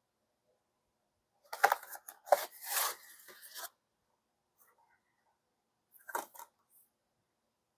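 Blu-ray case and its cardboard packaging being handled: a cluster of rubbing, scraping and sharp clicks about a second and a half in, lasting about two seconds, then a shorter burst of clicks and rubbing about six seconds in.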